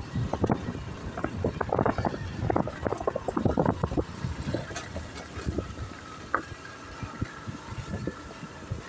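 Wind buffeting the microphone in irregular gusts, with low rumble and scattered knocks from riding along a bumpy dirt track.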